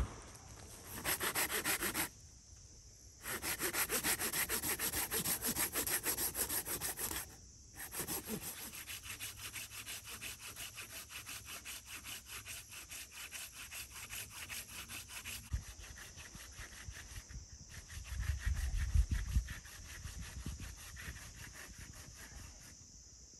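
Silky Gomboy folding pull saw cutting into dry, very hard dead hardwood with fast, rhythmic strokes, in runs broken by short pauses about two and seven seconds in, then steadier and quieter. About eighteen seconds in, a brief low rumble is the loudest sound.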